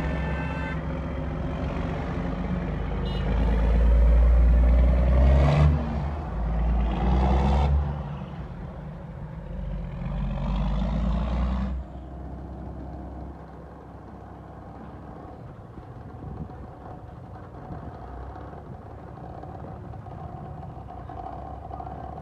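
Heavy diesel tri-axle dump truck driving past close by, its engine note rising in several pulls as it accelerates. About twelve seconds in the sound cuts off abruptly, leaving a quieter, steady truck engine rumble.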